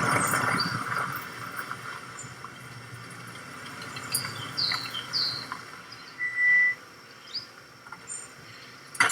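Background ambience with a few short, high bird chirps and one brief, steady high note about six seconds in, after a burst of noise at the start that fades away.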